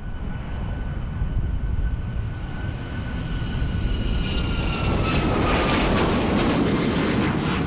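Boeing 737 MAX airliner with CFM LEAP-1B turbofans taking off at takeoff thrust: a steady jet roar with a thin engine whine that falls slowly in pitch as the plane goes past. It grows a little louder about five seconds in.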